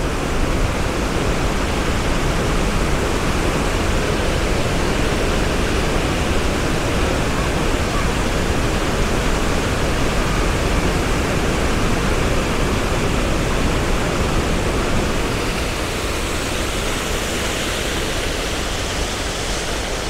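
Steady rushing of the Upper Düden Waterfall, water falling and cascading in an even, unbroken noise. It eases off slightly near the end.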